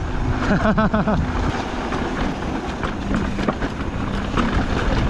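Mountain bike rattling down a dirt trail: wind on the microphone, tyres crunching over dirt and rocks, and the bike clattering over bumps. There is a short wavering vocal whoop about a second in.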